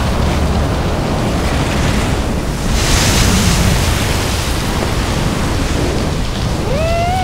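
Steady rushing wind noise, with a louder hissing whoosh about three seconds in and a short rising tone near the end.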